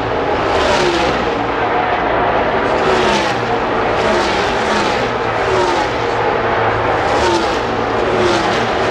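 NASCAR Cup stock cars' V8 engines at full throttle, running past one after another in a pack. Each engine note drops in pitch as it goes by, and the passes overlap into a continuous loud drone.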